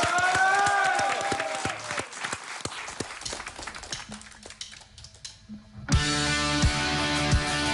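Audience applause fading over the first few seconds, then a live rock band starts playing about six seconds in: electric guitars, bass and a drum kit with a steady beat.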